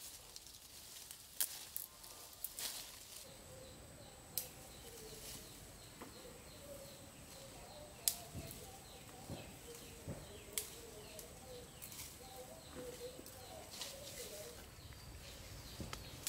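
Outdoor rural ambience: birds calling with wavering, warbling notes and a thin steady high-pitched whine, broken by several sharp clicks and knocks scattered through it.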